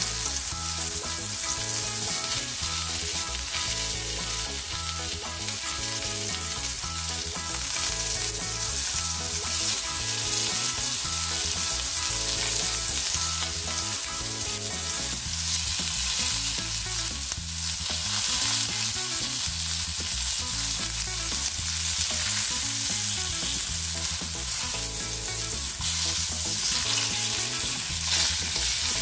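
Chicken cheese kababs shallow-frying in hot oil in a pan, sizzling steadily, while a spatula now and then scrapes and turns them. A steady hum runs underneath.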